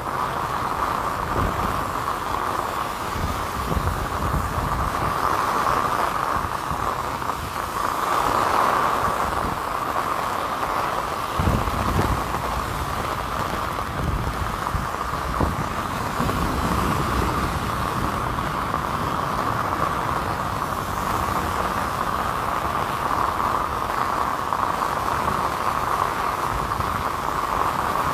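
Steady rain falling on a clear umbrella and on wet pavement, with a low, uneven rumble of traffic on the wet roads underneath.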